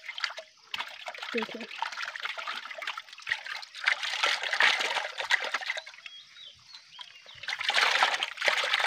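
Pond water splashing and dribbling as hands work a wet mesh fishing net holding small fish, a busy crackle of small irregular splashes that grows louder around the middle and again near the end.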